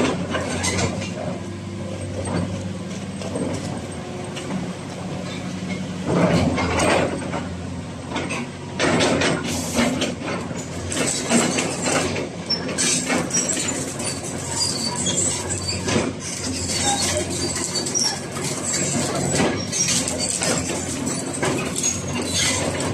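Caterpillar 336D crawler excavator's diesel engine running steadily, with irregular metallic clanks and rattles over it.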